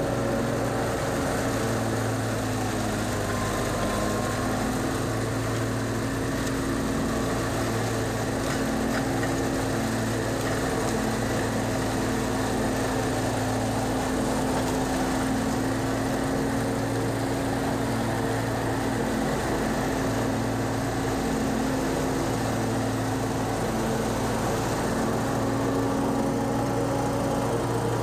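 Gas-powered leaf blower engine running steadily at high throttle, a constant hum with a wide rush of air.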